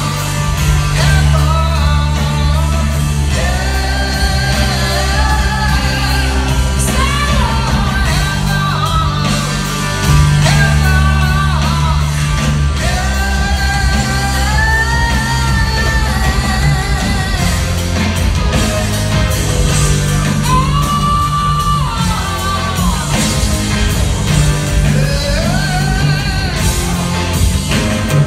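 A rock band playing live: a man singing long held notes over electric guitars, bass and drums, heard from the audience in a large theater hall.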